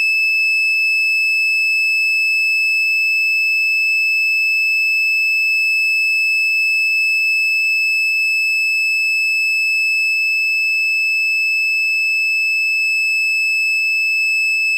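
Continuous high-pitched electronic buzzer tone, held steady without a break.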